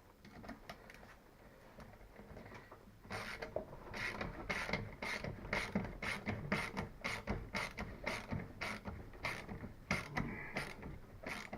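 Hand ratchet wrench clicking as the seat's mounting bolts are done up. Faint clicks for the first few seconds, then a steady run of sharper clicks, about three a second, from about three seconds in.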